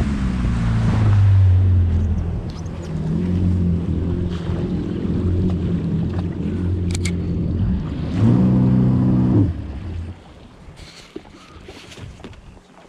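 Jet ski engine running underway with water spray. Just past eight seconds the throttle is blipped briefly, then the engine note drops away about ten seconds in, leaving wind and water lapping.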